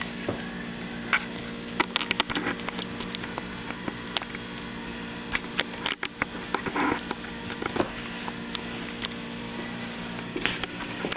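Handling noise from a home video camera being swung about and covered: scattered clicks and knocks over a steady electrical hum.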